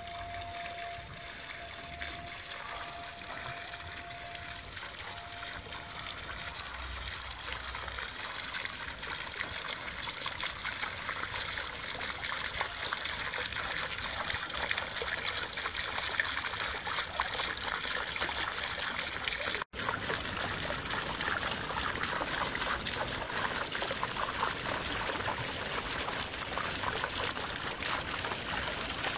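A garden fountain's water jet splashing down from an urn-shaped bowl into its basin, a steady splashing. It cuts out for an instant about two-thirds of the way in, then comes back a little louder.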